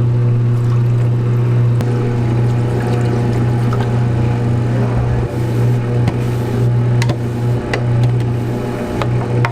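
A machine's motor running with a steady low hum, starting and stopping abruptly, with a few faint clicks over it.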